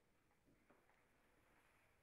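Near silence: faint room tone with two faint light clicks a moment apart.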